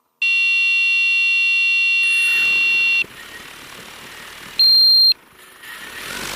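Electronic beeps: a long steady tone with many overtones lasting about three seconds, then a single short, higher beep about half a second long.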